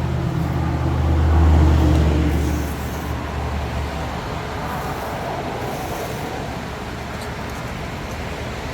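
An engine hum from a passing motor vehicle, swelling over the first two seconds and fading away by about four seconds in, over a steady background rush of distant traffic.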